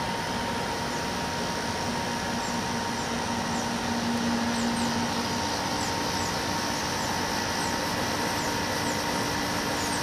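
A small 5000 BTU window air conditioner running on low fan with its compressor just started and drawing about 380 watts: a steady fan whoosh with a low compressor hum that comes in about two seconds in.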